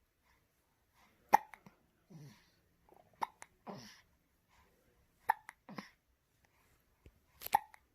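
Six-week-old baby hiccuping: four sharp hiccups roughly two seconds apart, each followed by a short, soft breathy sound from the baby.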